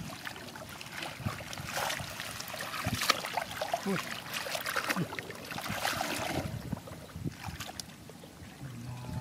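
Hands sloshing and splashing through shallow muddy water, groping in the mud and weeds in irregular swishes.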